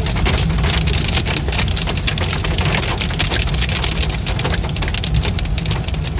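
Heavy rain pelting a car, heard from inside the cabin as a dense, steady crackle of drops over a low rumble.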